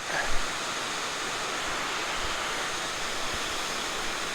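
Water rushing steadily over a river spillway, an even, unbroken roar of falling water.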